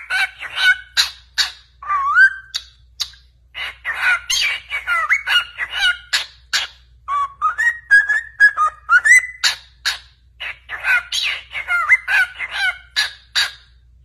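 A male cockatiel singing: a quick run of chirps, clicks and short whistles, with a longer phrase of whistled notes stepping up in pitch in the middle. The song stops just before the end.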